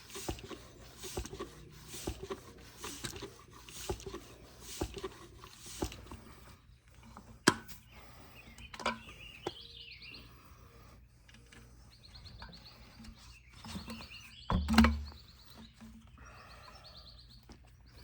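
A swish repeating about once a second, then two sharp knocks, the second the loudest. Birds chirp in the background in the latter half.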